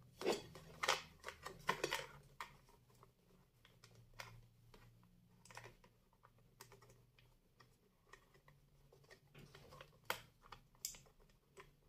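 Faint, irregular small clicks and taps of a CR2032 coin-cell battery and fingertips against the plastic battery compartment of a digital bathroom scale as the battery is worked into its holder. The clicks come thickest in the first couple of seconds and again near the end.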